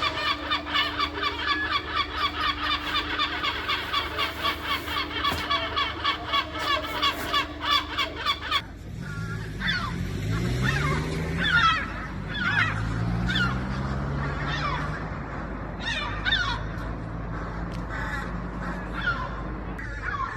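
Gulls calling: a fast, even run of repeated calls, several a second. A sudden change about eight seconds in gives way to scattered single calls from several gulls over a low hum.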